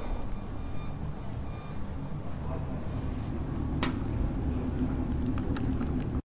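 Steady low rumble inside a JR Hokkaido 733 series electric train car, with no rising or falling motor whine. A single sharp click comes about four seconds in, and the sound cuts off abruptly just after six seconds.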